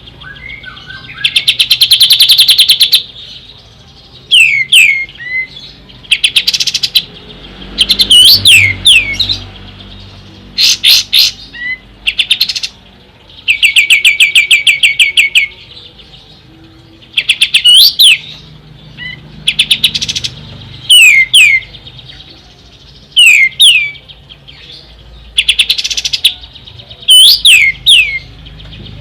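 Kapas tembak songbird singing: fast rattling trills lasting one to two seconds alternate with quick, sharp whistled notes that sweep down in pitch, phrase after phrase with short pauses between.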